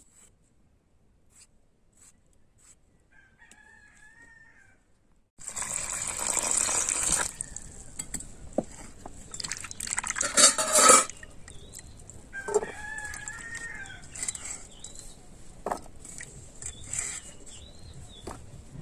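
A rooster crowing, faintly a few seconds in and again more clearly about two-thirds of the way through. Between the two calls come two loud noisy bursts, one lasting about two seconds and a louder one about halfway through.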